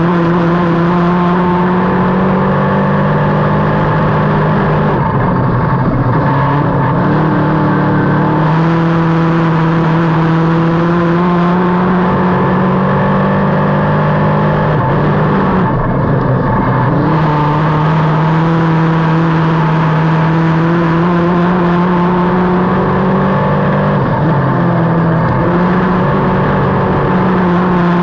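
Dirt-track race car's engine heard from inside the cockpit, running loud and hard on the straights and easing off three times, about 5, 15 and 24 seconds in, for the corners before pulling back up to speed.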